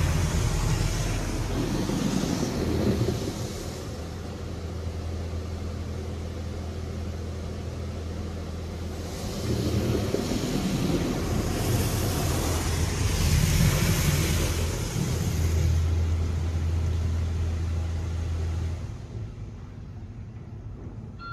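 Touch-free automatic car wash (WashWorld Razor Edge) spraying the car, heard from inside the cabin: a hiss of water jets that swells and fades several times as the spray passes over, above a steady low machine hum. Both drop away sharply about nineteen seconds in.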